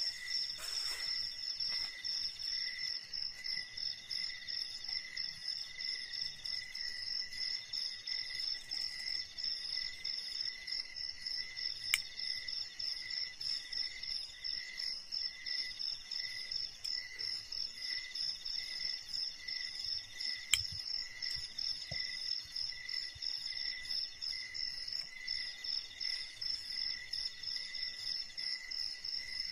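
A steady chorus of forest insects calling in rapid, pulsing high-pitched trills at several pitches. Two sharp clicks, about eight seconds apart, fall partway through.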